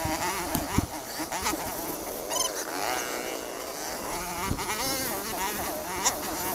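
Dirt bike engine buzzing and revving up and down as the throttle is worked, heard from the rider's own bike, with a few short knocks as it goes over bumps.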